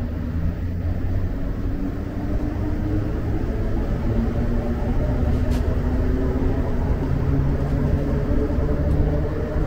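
Azur (MPM-10) rubber-tyred metro train heard from inside the car while running: a steady loud low rumble, with a motor whine that climbs in pitch as the train gathers speed.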